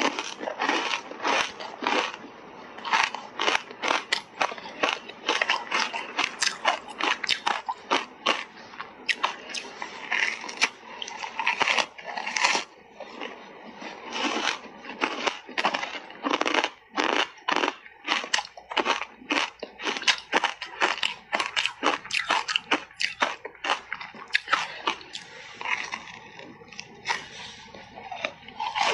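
Ice coated in matcha powder being bitten and chewed close up: a dense run of sharp crunches, several a second, with a few short lulls.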